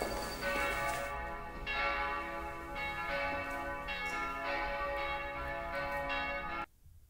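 Church bells ringing, with overlapping strikes and long ringing tones, cut off suddenly near the end.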